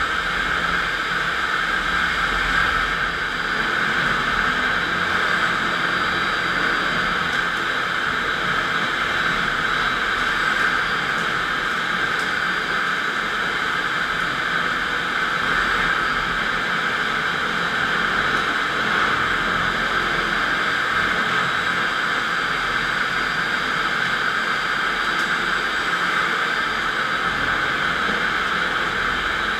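FastPrep electric concrete floor grinder running at a steady speed, giving an even, loud, hissing whir that does not change.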